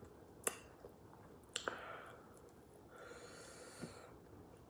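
Faint sounds of eating boiled shellfish by hand: two sharp clicks of shell cracking, about half a second and a second and a half in, then a soft breath about three seconds in.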